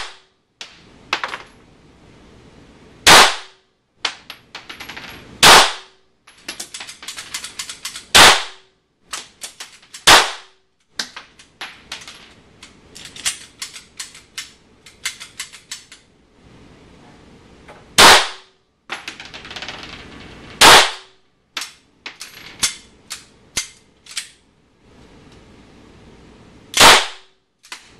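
Compact semi-automatic pistol fired one shot at a time in an indoor range: seven loud, echoing shots, mostly two to three seconds apart, with a longer pause in the middle. Fainter sharp cracks and clicks come in between.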